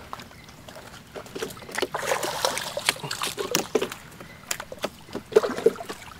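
Water splashing and sharp knocks in a canoe as a gillnet is hauled in and fish are worked out of it: irregular splashes and clatter, busiest about two seconds in and again near the end.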